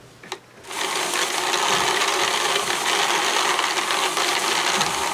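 Hand-cranked drum carder turning: a steady mechanical whirr of the spinning drum and its carding-cloth teeth as it draws blue and purple fibre in from the feed tray. It starts about a second in, after a small click.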